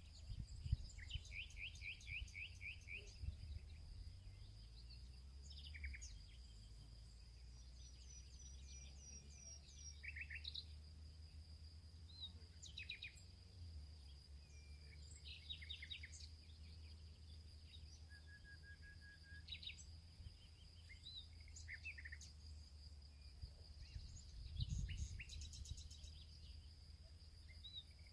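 Several songbirds singing and calling in short chirps and trills over a steady, high insect drone. A low rumble runs underneath, with a couple of soft thumps near the start and about 25 seconds in.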